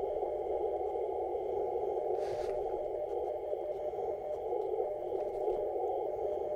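Icom IC-7300 receiving CW on the 40 m band: steady band-noise hiss through the narrow CW filter, with faint Morse code being copied. A brief rustle about two seconds in.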